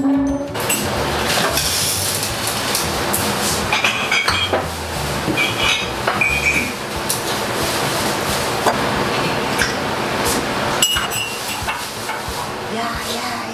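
Kitchen clatter: dishes and utensils clinking and knocking, with scattered sharp clicks.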